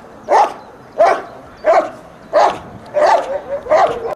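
German Shepherd barking at the helper in a protection exercise: six sharp barks at an even pace, about one every two-thirds of a second.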